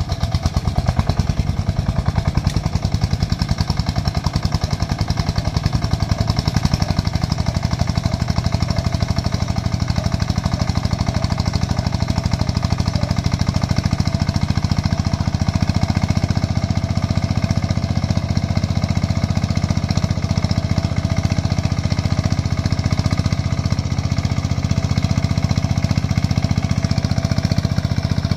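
Single-cylinder diesel engine of a công nông farm tractor running hard with a rapid, steady knocking beat as it hauls a trailer heaped with rubber-tree stumps up a muddy track.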